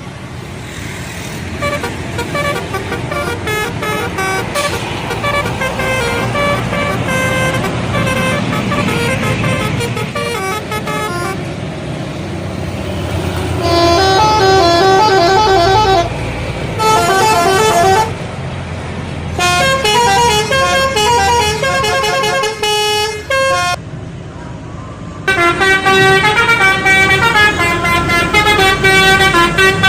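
Bus telolet horns, multi-trumpet electric horns, playing short melodic phrases of stepping tones over a low engine rumble. The phrases are faint at first and come in loud bursts with short pauses from about halfway through.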